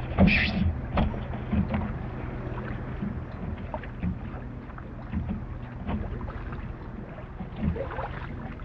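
Water splashing and sloshing around a kayak as the paddler climbs out and wades in shallow water, with a louder splash near the start and another near the end, over a low steady rumble.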